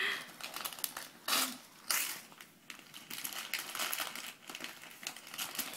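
Wrapping paper being torn and crumpled as a present is unwrapped: irregular crinkling rustles, the loudest about a second and a half and two seconds in.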